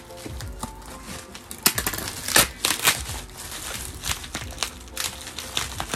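Plastic bubble wrap crinkling and crackling as it is cut and pulled open by hand, in a run of irregular crackles that is loudest between about two and three seconds in.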